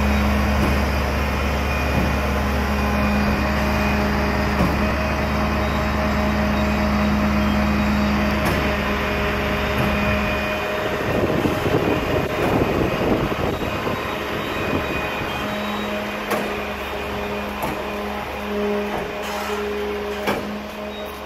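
Semi truck's diesel engine running steadily in neutral to power the walking-floor trailer's hydraulic drive as the floor slats push a load of distillers dried grains out the back. About halfway through the steady hum gives way for several seconds to a rougher rattling noise, and a few sharp clicks and knocks come near the end.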